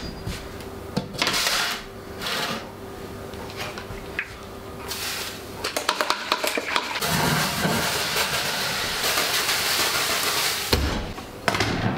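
A metal baking tray of dough is handled and slid into a deck oven with light knocks and clatter over a steady hum. Then a hand pump sprayer hisses for about four seconds as water is misted into the open oven, and the spraying stops with a low thump.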